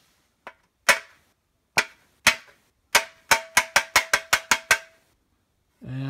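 A Roomba HEPA filter cartridge tapped against the rim of a pan to knock the trapped dust out: a few spaced sharp knocks, then a quick run of about nine taps, roughly five a second, with a ringing tone under them.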